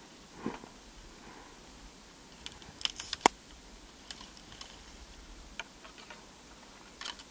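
Handling noise from the person filming on the riverbank: a quick cluster of sharp, light clicks about three seconds in, with a few soft rustles and ticks before and after.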